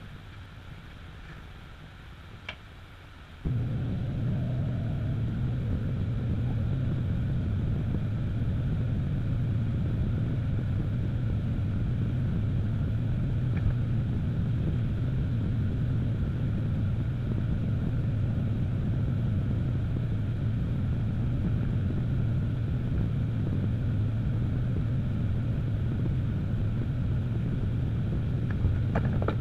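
Potter's wheel motor running with a steady low rumble and hum. It jumps abruptly louder about three and a half seconds in, then holds steady while the wheel spins.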